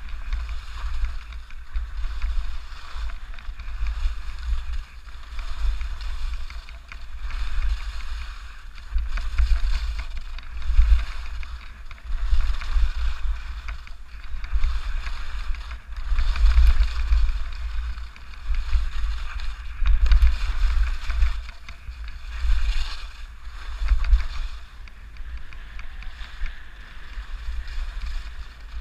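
Wind buffeting a GoPro's microphone at skiing speed, a low rumble, with skis hissing and scraping over ungroomed snow, swelling and fading every couple of seconds.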